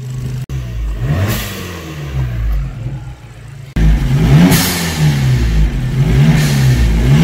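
Abarth's turbocharged 1.4 four-cylinder engine, fitted with an induction kit and a dump valve, revved in repeated quick blips while standing still; each rev rises and falls in pitch. It gets louder about four seconds in.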